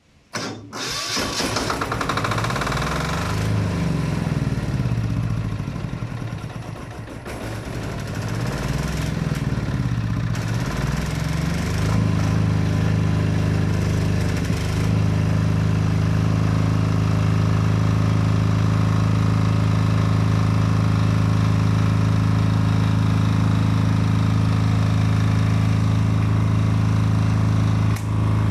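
Sumec SGD5000SE diesel generator engine running. Its speed swings up and down twice over the first ten seconds or so, then it settles into a steady, even run.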